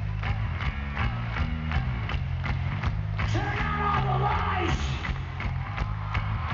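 Live punk-rock band playing, heard from the audience: a heavy bass line and distorted guitars over a steady drum beat. A voice holds a sung note in the middle.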